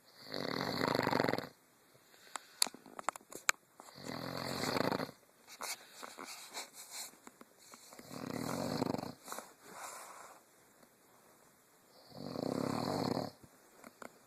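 Snoring: four long, loud snores about four seconds apart, each lasting about a second. Quieter breaths come between them, and a few sharp clicks fall between the first and second snore.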